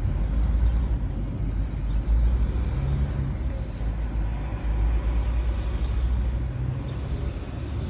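Low, steady rumble of city street traffic, running through with no clear starts or stops.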